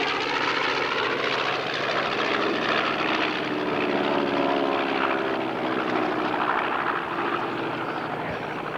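Piston-engined propeller warbirds flying past, their engines droning steadily. The engine pitch drops slightly in the middle as an aircraft goes by.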